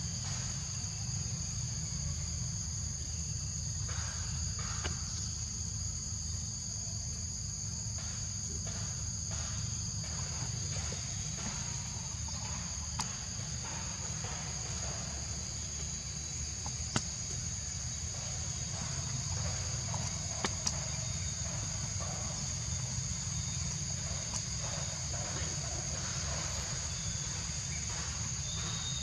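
Steady high-pitched chorus of insects, two unbroken shrill tones, over a low steady rumble.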